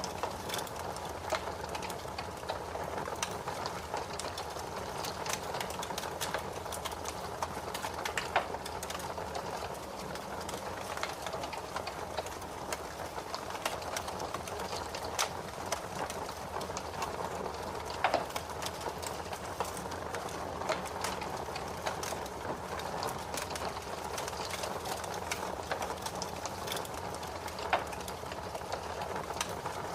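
Fire burning in a fireplace, crackling: a steady hiss of flames with frequent small, irregular pops and a few louder snaps spread through.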